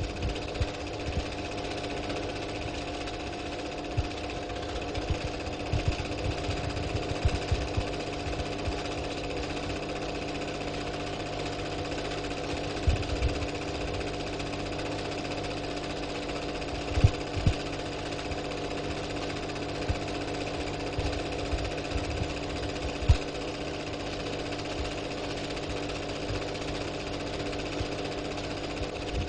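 A steady droning hum made of several held tones, with irregular low knocks and thumps scattered through it; a few knocks stand out louder, around the middle and later on.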